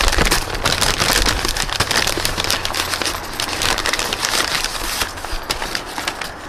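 Brown kraft packing paper crinkling and rustling as it is unrolled and pulled apart by hand, a dense crackle that thins out in the last second or so.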